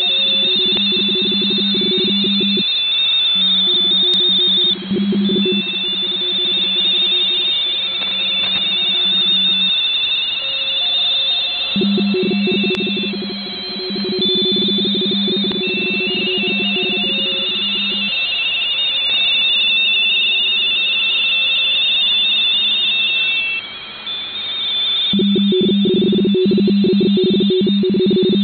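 Amateur-radio RTTY signals on the 20-metre band from an HF receiver: several 45.45-baud frequency-shift-keyed stations at once, each warbling rapidly between two close pitches. One strong low-pitched signal keys on and off several times while the higher-pitched ones run on. These are contest stations calling CQ TEST and sending 599 exchanges.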